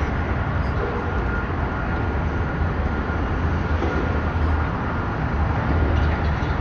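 Steady low rumble of road traffic, with no sudden events.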